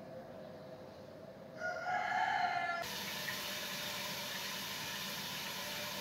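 A rooster crowing once, about a second and a half in, lasting about a second and cut off sharply. A steady hiss then takes over.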